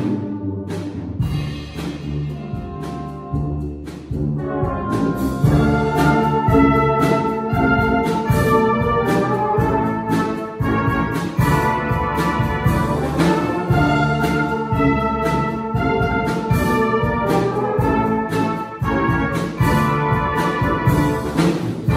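Brass band playing a rock-style arrangement, with cornets, euphoniums, tubas and trombones over a steady beat. The full band comes in louder about four seconds in.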